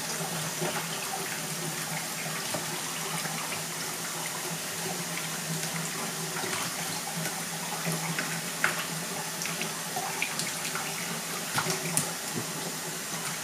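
A thin stream of water trickling steadily from a cup onto a bathing African grey parrot and into a shallow plastic tub of water. A steady low hum runs underneath, and a few soft clicks or small splashes come in the second half.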